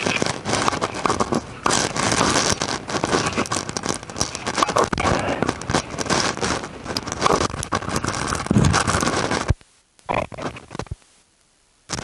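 Close, continuous scraping and crackling of digging in soil and rubble, dense with small knocks, which stops abruptly about nine and a half seconds in, leaving near silence apart from a couple of brief noises.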